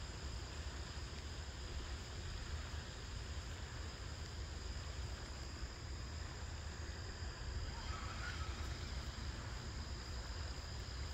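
Steady insect chorus, an even high-pitched drone, over a low rumble.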